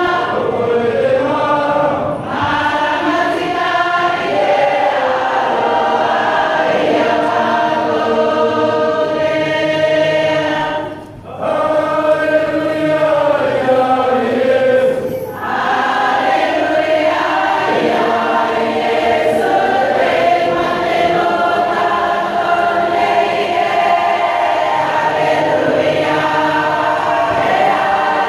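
A church congregation sings a hymn together, many voices in chorus. The sound dips briefly, for breath, about eleven and again about fifteen seconds in.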